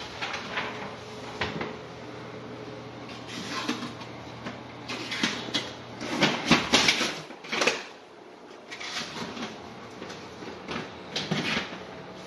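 Irregular knocks, clicks and rustles, loudest about six to eight seconds in: footsteps on a hardwood floor and handling noise of someone walking through rooms.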